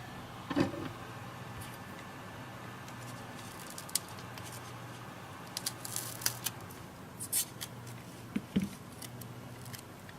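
Scattered light clicks, taps and short crisp scraping sounds of small tablet parts and tools being handled during a screen repair, over a steady low hum. A single louder knock comes about half a second in.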